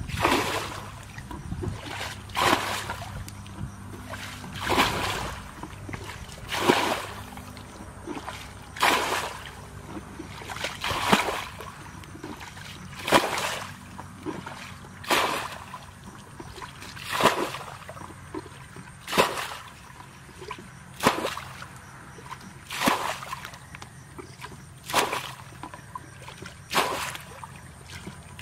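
Water splashing again and again as it is scooped and thrown from a shallow ditch with a plastic basin, one splash about every two seconds, at an even pace.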